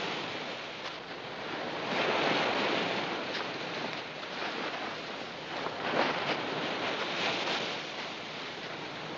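Ocean surf breaking and washing up a sandy beach, a steady rush that swells twice, about two seconds in and again around six seconds.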